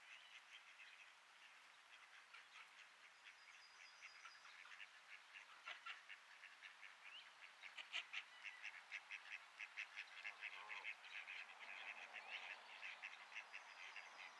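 Faint duck calls: a quick run of short quacking calls that grows busier over the second half, about four or five a second.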